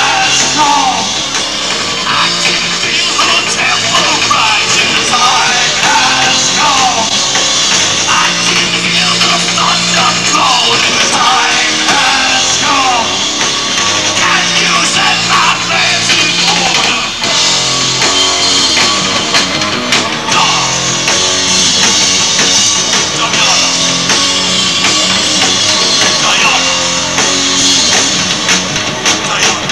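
Live heavy rock band playing loud and without a break: amplified instruments through stage speaker cabinets, with a singer's voice over them.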